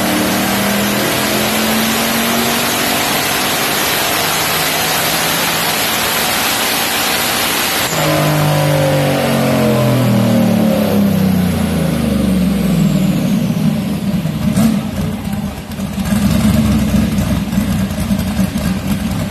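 Fox-body Mustang's turbocharged 408 V8 at wide-open throttle on a chassis dyno, in a pull made without boost. Its revs climb steadily for about eight seconds, then the throttle closes and the revs fall away over several seconds before it settles to a loud idle.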